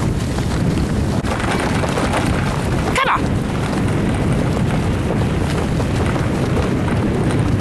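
Steady rushing rumble of a dog-drawn sled gliding over snow, with wind buffeting the microphone. About three seconds in, a short rising call cuts through.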